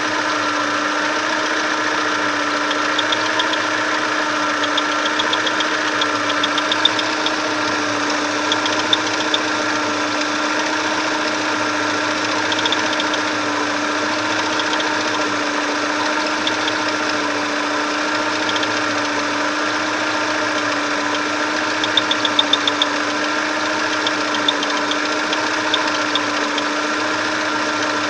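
Chevrolet Lacetti engine idling while it warms up, with a steady whistle from the timing belt tensioner roller. Short clusters of light ticks come through now and then.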